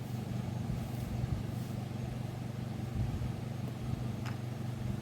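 A steady low machine hum with no change in pitch or level.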